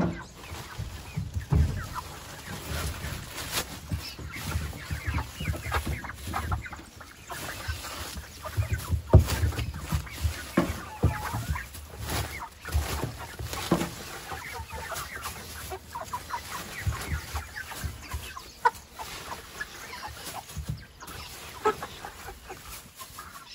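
Chickens clucking over and over, mixed with scattered knocks and handling noise, one sharper knock about nine seconds in.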